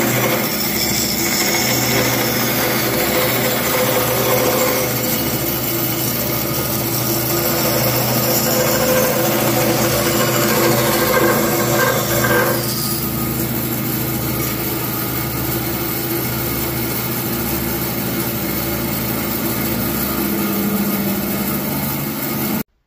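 Bandsaw running, its blade cutting a curved profile through a block of Nargusta hardwood over a steady motor hum. The sound cuts off suddenly just before the end.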